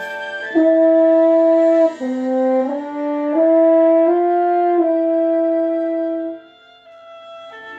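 French horn playing a slow phrase of sustained notes: a long held note, a few stepwise changes of pitch, then another long held note that stops about six and a half seconds in.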